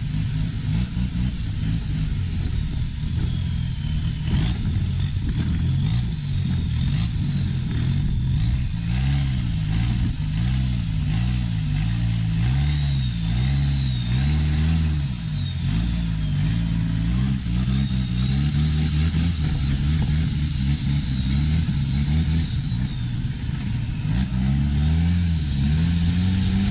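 A motor vehicle's engine running and being revved, its pitch swinging up and down again and again, with a high whine that rises and falls with the revs.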